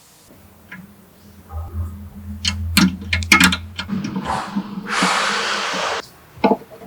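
Workshop work noises: a low hum with a run of sharp knocks and clicks, then a steady hiss lasting about a second, and two more knocks near the end.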